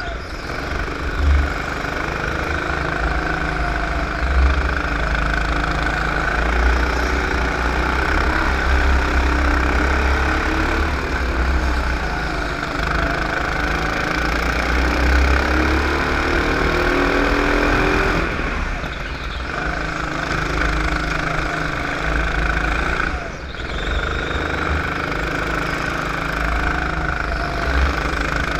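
Onboard sound of a racing go-kart's engine running hard through a lap, its pitch rising and falling as the driver accelerates and lifts off for corners, with two short drops in level about two-thirds of the way through.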